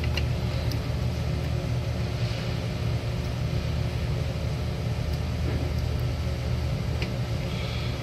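Steady low mechanical hum of running equipment, with a few faint clicks as the wires and lever-tab connector are handled.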